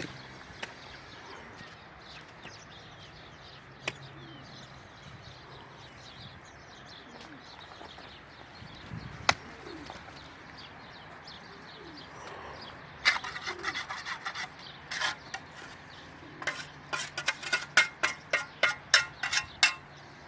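Faint background with a few scattered clicks, then a run of sharp knocks starting about two-thirds of the way in and coming about three a second near the end.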